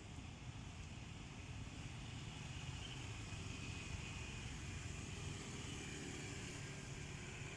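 Steady low rumble of outdoor background noise, with a faint high-pitched drone above it.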